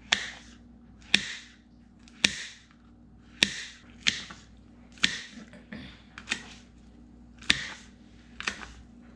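Kitchen knife chopping on a cutting board: nine sharp strokes, irregularly about one a second, each followed by a short scrape of the blade.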